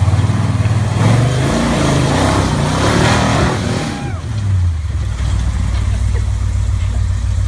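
Rock buggy's big-block Chevy V8 revving hard at full throttle, its pitch rising and falling again and again. A rougher, noisier stretch runs from about a second in to about four seconds in.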